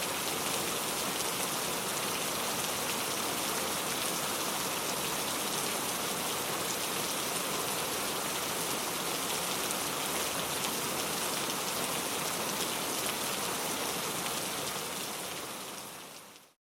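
Heavy rain falling in a steady, dense downpour of drops striking surfaces, fading out over the last couple of seconds.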